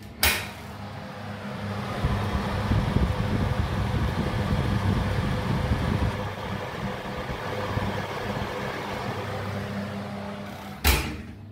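Hotpoint oven door clicked open, then a steady rushing, fan-like noise from the open, heated oven, and the door shut with a clunk near the end.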